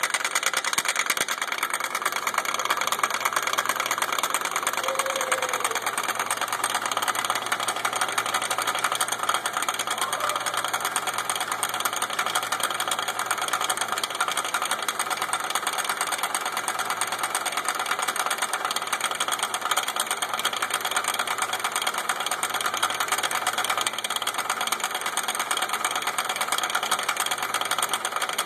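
A car's driveshaft with a separated CV joint making a fast, steady clicking and rattling over the running engine: the sign of a broken CV joint, though the customer reported it only as a slight clicking noise.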